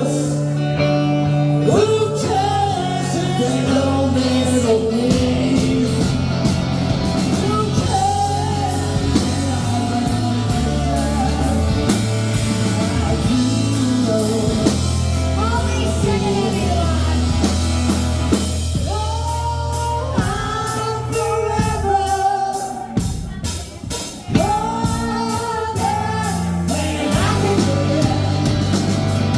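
Rock band playing a song with sung vocals, guitar and drums. The music drops back for a moment about three-quarters of the way through, then comes straight back in with hard-hit drums and cymbals.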